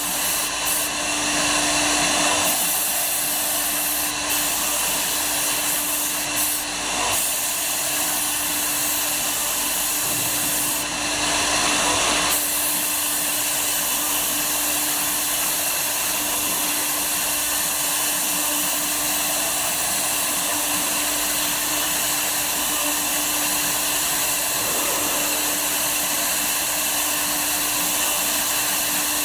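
Woodworking CNC router running steadily as it cuts wood: a constant hiss with a steady hum from the spindle and machine, with brief changes in the high rush during the first dozen seconds.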